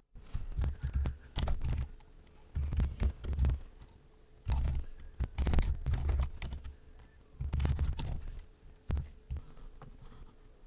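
Typing on a computer keyboard in irregular bursts of key clicks, with short pauses between.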